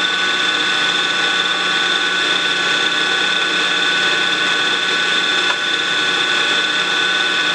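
PM-940 CNC mill running steadily, a constant machine whine with several high, unchanging tones.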